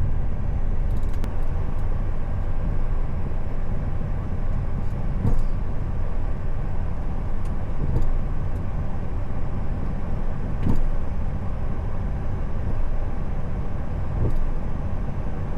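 Steady flight-deck noise of a Boeing 737 on a wet night approach: airflow and engine noise with a few soft knocks.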